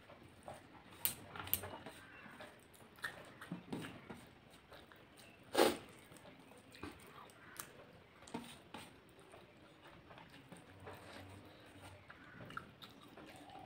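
A person chewing a mouthful of rice and vegetables, with soft scattered clicks as fingers work the rice on a steel plate, and one sharper click about five and a half seconds in.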